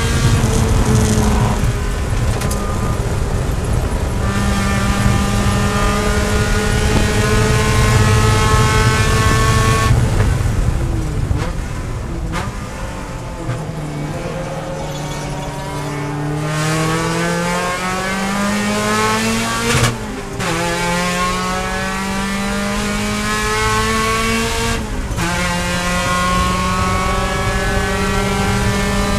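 Race-prepared Mazda Miata's four-cylinder engine heard from inside the cockpit. It runs high in the revs at full throttle, the revs fall away under hard braking about ten seconds in, then it accelerates with rising pitch. Upshifts come about twenty and twenty-five seconds in.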